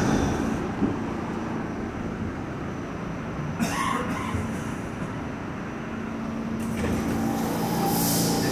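New York City subway train noise in an underground station: a steady rumble, a short hiss about halfway through, and a low steady hum that grows louder near the end.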